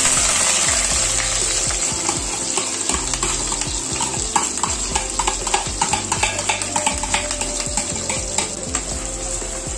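Chopped shallots, green chillies, curry leaves and crushed ginger and garlic sizzling in hot coconut oil in a clay pot, where mustard seeds and fenugreek have already popped. A steady hiss with many small crackles and pops through it.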